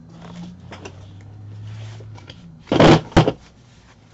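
Large stiff sheets of white card or paper being handled: a loud rustling sweep about three-quarters of the way through, then a sharp slap a moment later.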